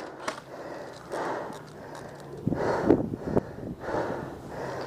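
An airsoft player's heavy breathing and movement noise as he moves up, in soft swells about once a second, with a few sharp knocks about three seconds in.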